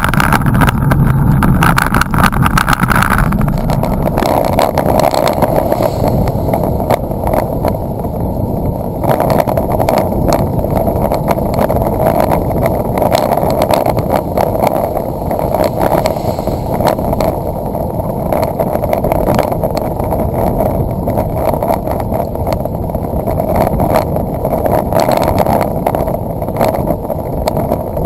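Steady, muffled rushing noise of a bicycle riding along a wet road, picked up by a handlebar-mounted camera: wind buffeting the microphone together with tyre noise on the wet tarmac. A brighter hiss on top drops away about three seconds in.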